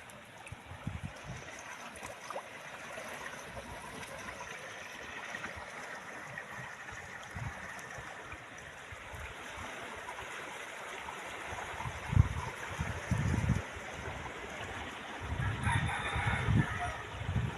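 A rooster crowing near the end, over a steady outdoor hiss. Low gusts of wind buffet the microphone a few times, loudest about twelve seconds in.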